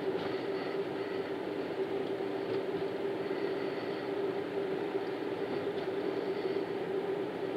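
Steady road noise of a car driving across a covered bridge's deck, heard from inside the cabin: an even tyre rumble with a constant low drone and a few faint ticks.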